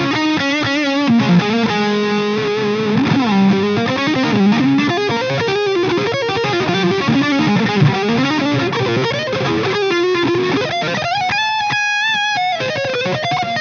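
Electric guitar with P90 pickups played through a Dover DA-50 amplifier with some overdrive: single-note lead lines with string bends and a long held note near the end.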